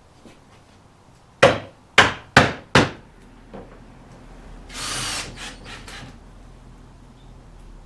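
Four sharp knocks of a rubber mallet striking plywood boards in quick succession, then a cordless drill/driver spinning briefly to drive a construction screw into the wood.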